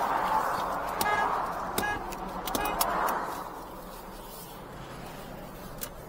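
Highway traffic rushing past, fading after about three seconds, with three short horn taps at about one, two and three seconds in: the agreed signal to the waiting motorist that he can pull away.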